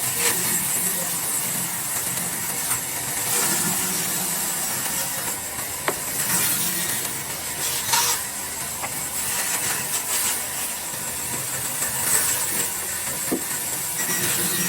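A power tool cutting wood: a steady, hissing machine noise with a few sharp clicks along the way.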